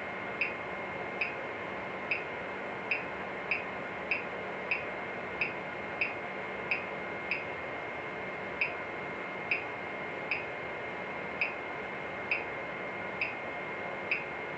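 Wanhao Duplicator i3's control knob being turned one detent at a time, each step sounding a short high blip, about one a second at uneven spacing. Each click jogs the extruder 1 mm to push filament through. A faint steady whine runs underneath.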